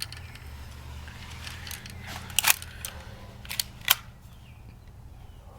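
Several sharp plastic clicks, a couple close together about two and a half seconds in and two more near four seconds, from a cheap plastic airsoft pistol being handled, over a low steady hum.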